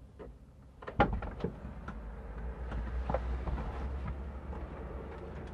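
Car door unlatching with a sharp click about a second in, then a low steady rumble with small knocks and rustles as a person climbs out of the driver's seat.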